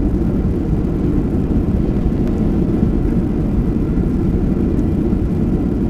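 Boeing 737-700 landing rollout heard from inside the cabin: a loud, steady low rumble of the engines and the runway as the airliner slows just after touchdown.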